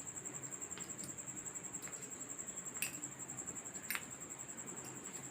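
A steady high-pitched whine with a few faint clicks, the two clearest about a second apart near the middle.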